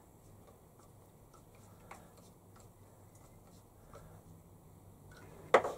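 Faint, sparse ticks of a small screwdriver turning the gib adjusting screw on a milling machine's saddle, tightening the tapered gib to take up slack in the slide. A single sharper knock about five and a half seconds in.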